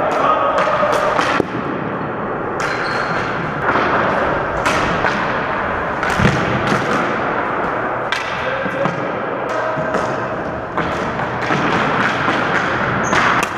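Ball hockey play on a gym floor: irregular sharp knocks of sticks and the ball striking the floor and each other, one to three a second.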